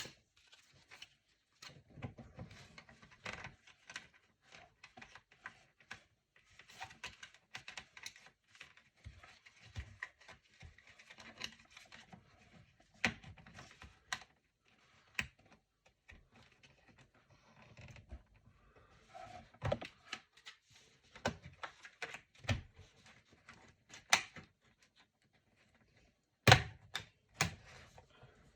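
Plastic bottom cover of a Lenovo IdeaPad Gaming 3 laptop being pried off, its retaining clips snapping loose in irregular sharp clicks with scraping between them. The loudest snap comes near the end.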